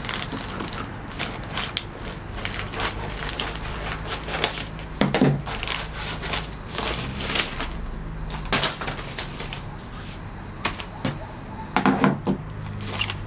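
Plastic mailer bag and wrapping being cut with scissors and pulled open by hand, crinkling and rustling in irregular bursts, with louder bursts about five seconds in and near the end.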